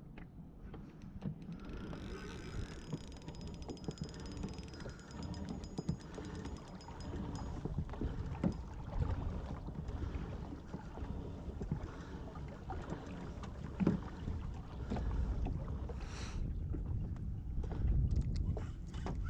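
Water and handling noise on a fishing kayak, with scattered knocks and a fast, even run of clicking for several seconds starting about two seconds in, while a lure snagged in the river mud is worked free.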